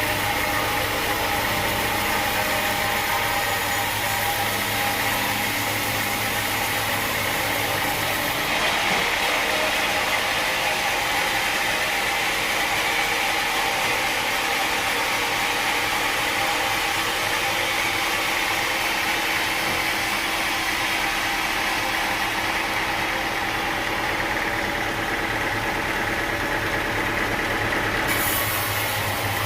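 Sawmill machinery running steadily, a continuous mechanical hum with a higher hiss. About eight seconds in the low rumble drops and the hiss grows, and shortly before the end it changes back.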